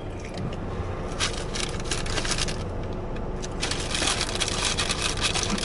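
Paper fast-food wrapper crinkling and rustling in the hands, in irregular crackly bursts that grow busiest in the last couple of seconds.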